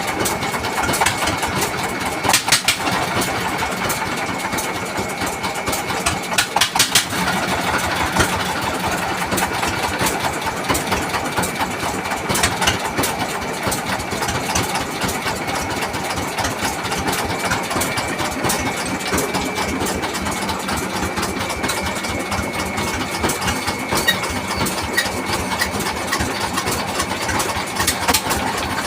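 Single-cylinder Dongfeng 24 hp diesel engine running steadily with a clattering knock. Brief louder bursts come about two seconds in and again about seven seconds in.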